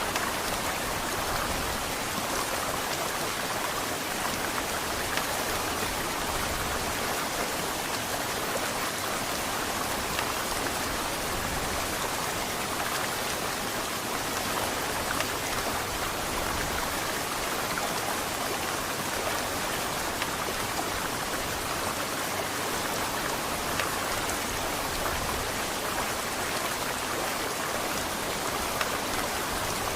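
Heavy rain falling steadily, a dense even hiss of drops with a few louder single drops standing out now and then.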